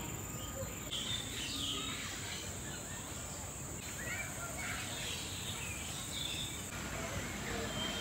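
Several birds chirping and calling in short rising and falling notes, over a steady high-pitched drone of insects.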